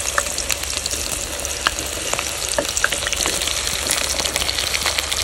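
Cut okra dropping into hot oil in a karahi, the oil sizzling steadily with frequent crackles and pops as more pieces go in.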